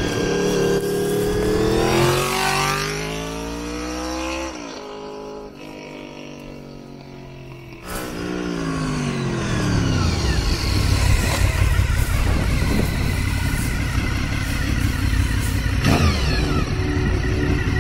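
Honda VFR750 RC36 streetfighter's V4 engine, revving up with rising pitch as the bike accelerates away through a bend. After a break its pitch falls, and then it runs loudly close by as the bike comes up near.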